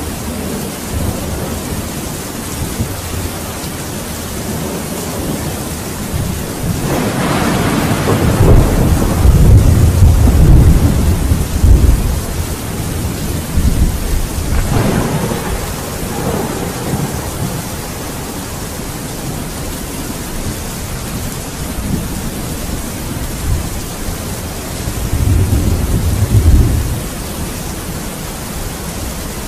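Steady rain with rolls of thunder: a long rumble builds about seven seconds in and peaks over the next few seconds, a shorter one follows about half way, and another comes a few seconds before the end.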